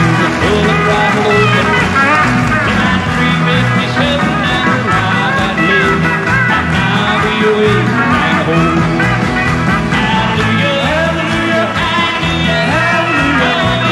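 Live country band music with a steady beat, and a man singing along at the microphone.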